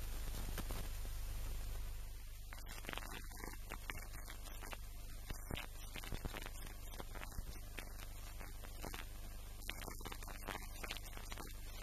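A steady low hum under a hiss that eases a little about two seconds in, with a few faint ticks.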